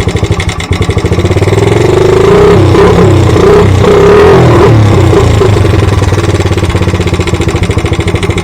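Honda XL80 dirt bike's small single-cylinder four-stroke engine running just after being started, its note rising and falling as the throttle is blipped in the middle, then settling to a steady run.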